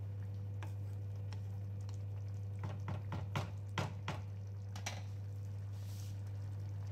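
Spatula knocking and scraping against a kadai of simmering curry: a cluster of sharp clicks and knocks between about two and a half and four seconds in, with a few lone soft pops before it, over a steady low hum.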